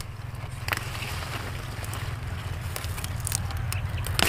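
Radish leaves rustling, with a few short crackles, as a hand pushes in among them and grips the stems, over a low steady rumble.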